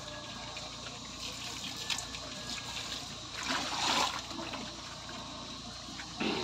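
Pigs eating wet feed at a trough, slurping and splashing, with a louder wet splash about three and a half seconds in and a shorter one near the end.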